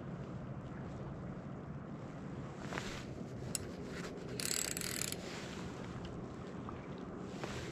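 Fly reel's click-and-pawl drag buzzing in short runs as a hooked trout pulls line, the longest and loudest about four and a half seconds in, over a steady low rush.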